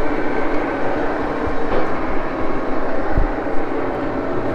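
Axelson engine lathe running steadily, its gear train giving a constant hum and whine with a low rumble underneath, and a couple of brief low knocks about a second and a half and three seconds in.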